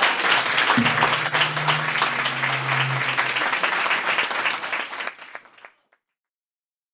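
An audience applauding, the clapping fading out after about five seconds.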